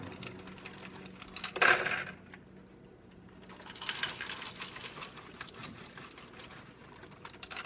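Chocolate chips pattering and clicking into a measuring cup as they are poured from their plastic bag, with the bag crinkling.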